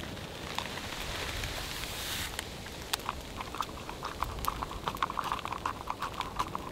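Water bubbling in a metal camp mug as its lid is lifted: a short hiss about half a second in, then from about three seconds on a quick, busy run of small pops.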